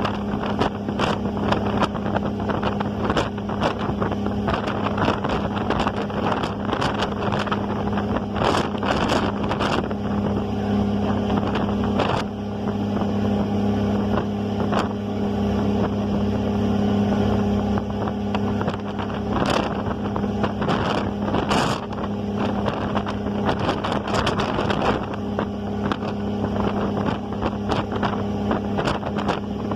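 Ferry engine droning steadily, with a constant low hum, while wind gusts buffet the microphone.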